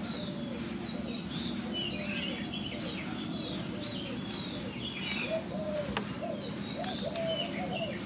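Several birds calling together: quick high chirps, and a lower series of short arched, cooing notes that grow busier about halfway through, over a steady low background rumble.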